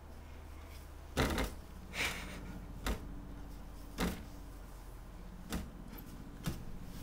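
A baby kicking in a crib, his feet thumping and knocking against the mattress and the padded sides: six irregular thumps, the loudest about a second in.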